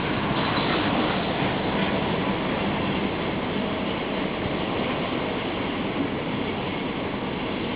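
A train passing close by: a steady, dense rush of wheels on rails with a faint low hum, building up just before and then holding level.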